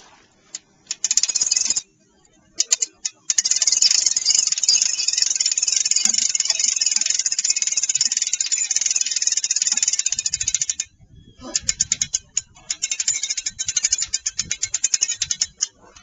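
Hand-cranked boat trailer winch being wound, its ratchet pawl clicking rapidly as the boat is drawn up onto the trailer. The clicking comes in three runs: a short one about a second in, a long one of about seven seconds, and a last one of about four seconds.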